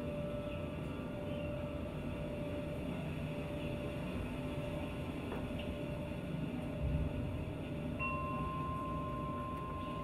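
Ambient soundtrack music: a steady low rumble under a long held tone, joined by a second, higher held tone about eight seconds in.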